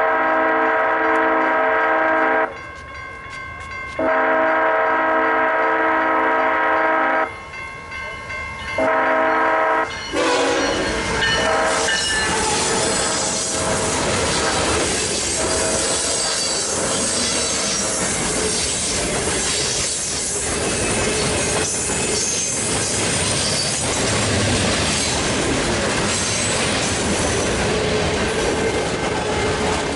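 BNSF diesel locomotive's Nathan K5HL five-chime air horn sounding the crossing signal: two long blasts, a short one, and a last brief one about ten seconds in as the locomotives reach the crossing. Then the steady rumble and clickety-clack of freight car wheels on the rails as the train passes, with some wheel squeal.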